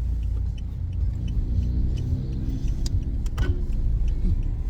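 Car engine running, heard from inside the cabin as a steady low rumble, with a light ticking about three times a second and a couple of sharp clicks a little after the middle.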